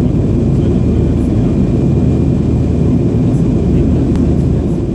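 Steady low roar of a Tupolev Tu-154M's rear-mounted Soloviev D-30KU-154 turbofan engines in flight, heard inside the cabin beside the engine.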